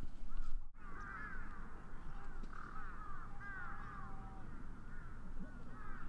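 Birds calling outdoors, many short arching calls overlapping one another, over a low steady outdoor rumble.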